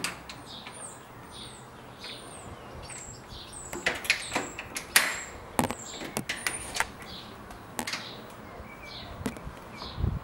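Small birds chirping over and over outside, short high calls that slide downward, with a few sharp clicks and knocks about four to six seconds in.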